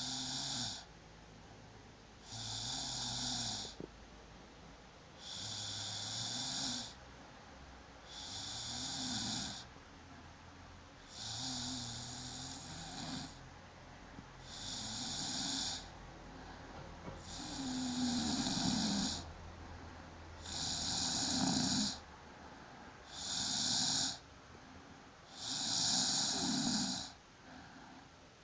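A sleeping person snoring in a steady rhythm: about one snore every two and a half to three seconds, each lasting one to two seconds, with quiet breathing between. The snores get somewhat louder after the middle.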